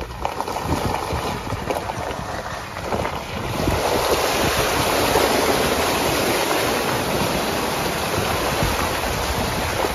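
Steady rushing wind and road noise from a vehicle driving a gravel road, growing louder about three and a half seconds in.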